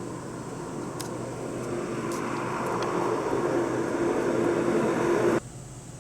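A passing vehicle growing steadily louder as it approaches, then cut off abruptly about five seconds in.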